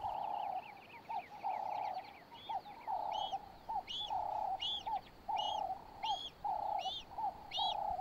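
Birds calling: a repeated mid-pitched call, a longer note alternating with a short one about once a second, with a high, arching chirp repeating about once a second over it from a couple of seconds in; a quick run of falling high chirps comes first.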